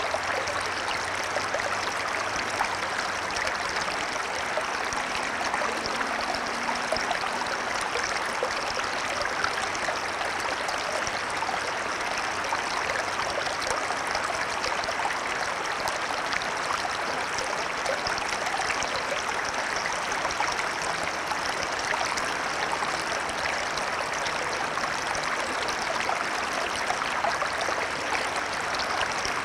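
Shallow small stream: water running and babbling over stones in a steady, continuous flow of fine splashes and trickles.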